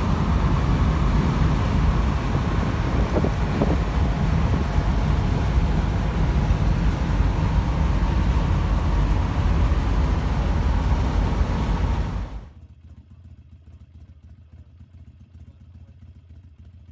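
Steady road and wind noise of a vehicle driving at highway speed, heard from inside the cab: a dense rumble heaviest in the low end. It cuts off suddenly about twelve seconds in, leaving a much quieter faint background.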